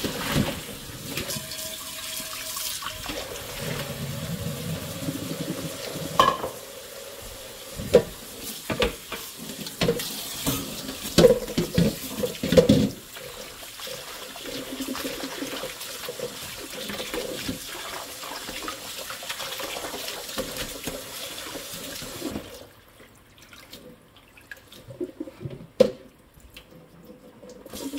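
Kitchen tap running into a stainless steel sink as blanched spinach is poured out of its pot and rinsed in cold water, with scattered knocks of the pot and colander against the sink. Near the end the running water drops away, leaving quieter handling sounds.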